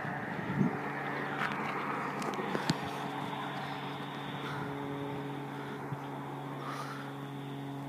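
Class 43 HST power car's diesel engine passing at speed, a steady drone that slowly fades as the train moves away.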